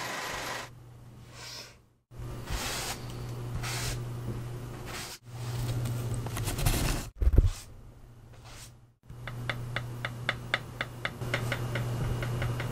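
Stiff bristle paint brush scraping and brushing paint over palette paper and canvas, in a few short separate stretches over a steady low hum. A dull bump comes about seven seconds in, and near the end a quick run of even ticks, about four a second.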